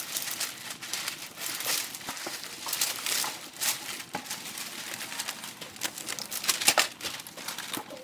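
Wrapping paper crinkling and rustling as it is folded and pressed around shoe boxes, in irregular crackles with a louder crackle late on.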